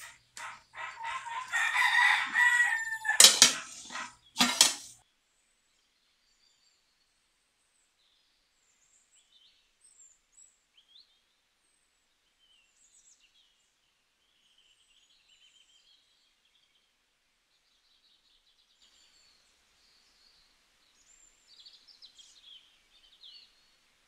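A rooster crowing in the first few seconds, with three sharp knocks just after, then near silence with faint, scattered high bird chirps.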